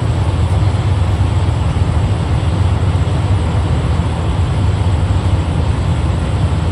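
Steady low rumble of a vehicle engine running, with an even hiss above it and no change in speed.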